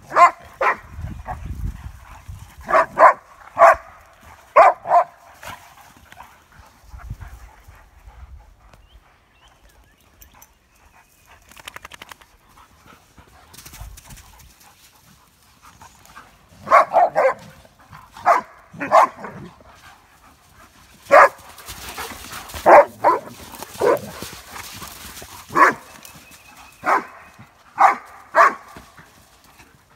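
Dogs barking during rough pack play: short, sharp play barks from Dobermans and Dogo Argentinos, coming in quick clusters near the start and again through the second half, with a quieter spell in the middle.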